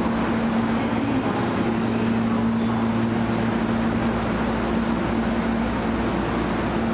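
Subway train approaching through the tunnel toward an underground platform: a steady rumble with a constant low hum.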